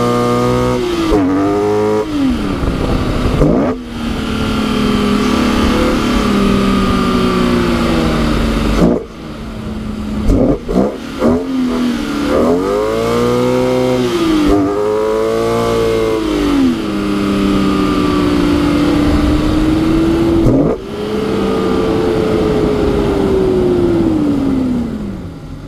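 BMW E46 M3's S54 straight-six engine revving hard and falling again many times while the car drifts on snow, with brief sudden drops where the throttle is lifted. A long falling glide of the revs comes near the end, under a steady rushing noise.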